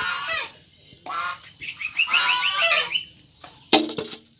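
Geese honking in a series of short nasal calls, with a rapid run of short notes in the middle. A single sharp knock comes near the end.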